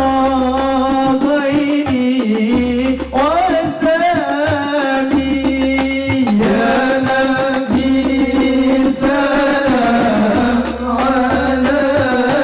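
Sholawat devotional music in a Middle Eastern style: a voice singing long, ornamented phrases over a sustained accompaniment, with short breaks between phrases about 2, 6 and 11 seconds in.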